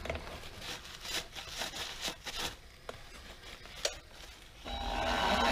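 Light rubbing and clicking of a shop rag and hand tools on a metal lathe. About a second before the end, the benchtop mini lathe's motor starts and spins up with a rising whine.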